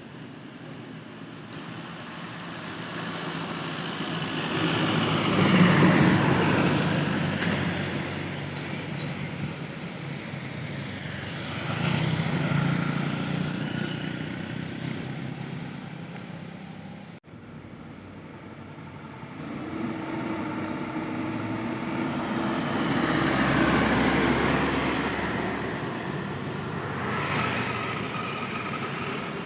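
Trucks driving past on a road, engine sound swelling and fading as each goes by, with pitch glides as they pass. The sound breaks off abruptly about 17 seconds in and picks up again.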